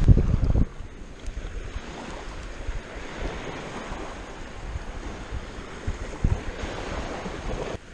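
Sea surf washing on a sandy beach, a steady rushing noise, with wind buffeting the microphone, heaviest in the first second.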